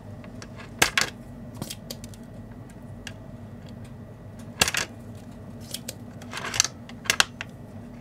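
Spring-loaded desoldering pump (solder sucker) snapping as its plunger is released to suck molten solder out of a through-hole joint: three sharp snaps, about a second in, near five seconds and near seven seconds, with lighter clicks and a brief hiss between.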